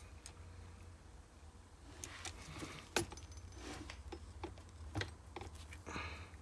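Small metallic clicks and scrapes of a hex key working a set screw on an RC car's gear housing, with handling noise between. One sharp click about three seconds in is the loudest, and another comes about two seconds later.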